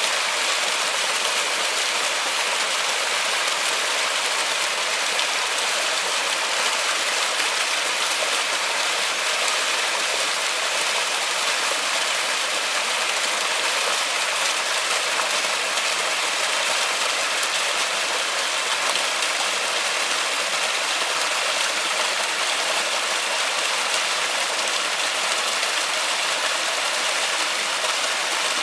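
Steady rain falling in a forest, an even hiss that holds without change.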